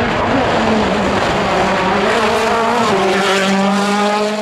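Mini John Cooper Works WRC rally car's turbocharged four-cylinder engine running at high revs as it drives past, its engine note held fairly steady.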